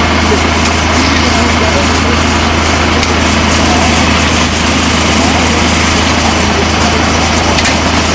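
Fire engine's engine running steadily at the scene, a constant low drone, with indistinct voices over it.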